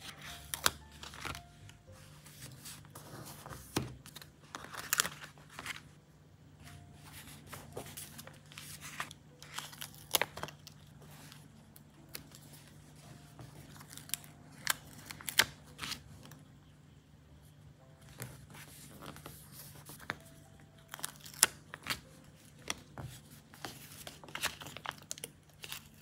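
Stationery handling on a desk: stickers being peeled off their backing and paper crinkling, with scattered sharp clicks and taps.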